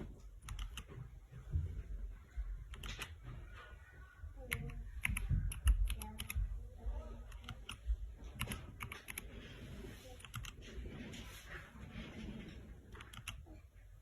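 Keys being typed on an MK66 mechanical keyboard: irregular clicking keystrokes, sometimes in quick runs of several presses.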